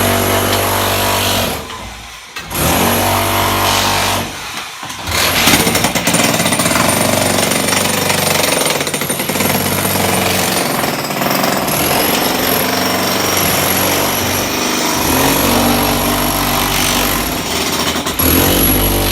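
Electric demolition hammer chipping, running in long stretches. It stops briefly twice in the first five seconds, then runs steadily.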